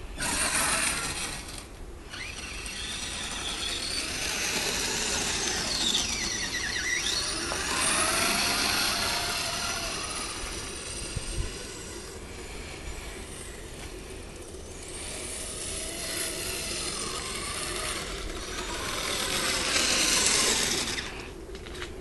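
Kyosho Blizzard radio-controlled snowcat driving over snow: its electric motor and gears whine, gliding up and down in pitch as it speeds up and slows. It grows louder twice, about a third of the way in and again near the end, as it comes close.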